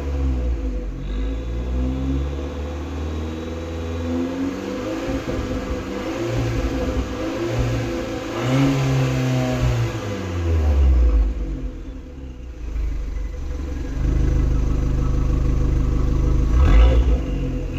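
Abarth 595's turbocharged 1.4-litre four-cylinder engine on its stock exhaust, revs climbing and dropping several times, with a rush of noise as the revs peak about halfway through, then held higher and steady near the end.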